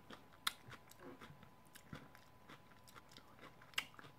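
Close-up chewing of a crisp fried tostada with the mouth closed: soft, quiet crunching, with two sharper crunches about half a second in and near the end.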